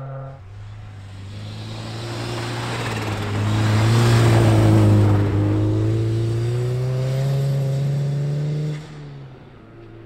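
Subaru Impreza WRX STI's turbocharged flat-four engine passing close at speed on snow, louder with a hiss of tyres and thrown snow as it goes by about halfway through. It then revs higher as it pulls away, and the note falls away sharply near the end.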